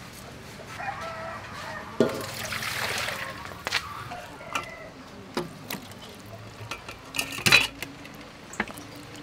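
Poultry calling in the background, with water splashing as raw duck is washed in a metal basin of water. Several sharp knocks and clatter come through, the loudest about seven and a half seconds in.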